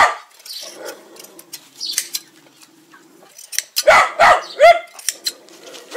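Dog barking in short, loud barks, with a quick run of three about four seconds in.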